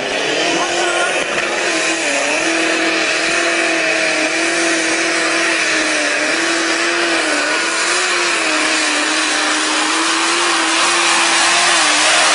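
Turbocharged pulling tractor's engine running flat out under full load while pulling a weight sled: a loud steady roar carrying a high tone that wavers only slightly in pitch, growing a little louder near the end.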